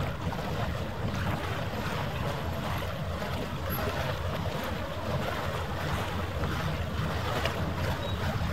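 Steady harbour ambience: wind buffeting the microphone over lapping water, with a low rumble.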